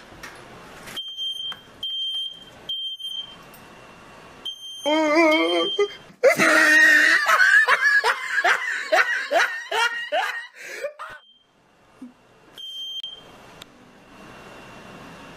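A smoke alarm beeping in short repeated high-pitched bursts, set off by burnt bacon. About five seconds in, a person breaks into loud laughter for several seconds, and the alarm beeps again briefly near the end.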